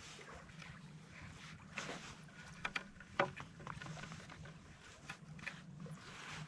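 Cord being wrapped and pulled tight around the wooden shafts of two canoe paddles: light rustling of cord and clothing with a few small knocks and clicks from the paddles, the sharpest about three seconds in.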